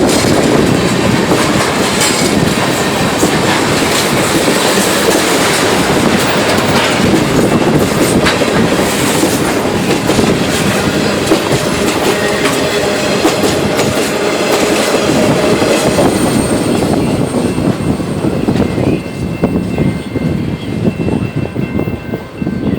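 Canadian Pacific train rolling past, its steel wheels clattering over the rail joints in a steady loud run. In the last few seconds the noise thins and grows uneven.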